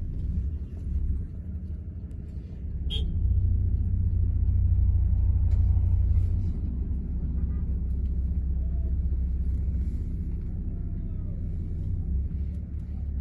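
Low, steady engine and road rumble inside a moving car, swelling for a few seconds after a single sharp click about three seconds in.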